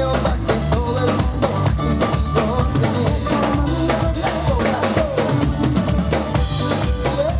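Live band playing upbeat music on guitars and a drum kit, the drums keeping a steady beat.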